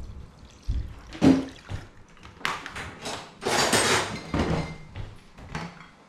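Milk being poured into a pot of potatoes, among a few knocks and clatters of kitchen utensils, the sharpest about a second in.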